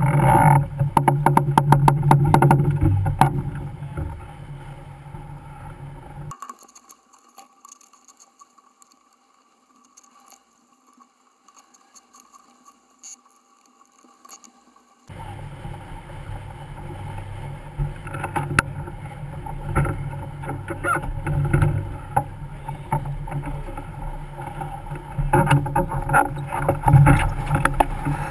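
Wind on the microphone and water rushing past the hull of a racing sailboat heeled upwind, heard from an onboard camera in fast-forwarded footage. It is loud for the first few seconds, with a run of quick clicks. It drops to a much quieter, thinner stretch from about six seconds in, then comes back about halfway through with scattered knocks.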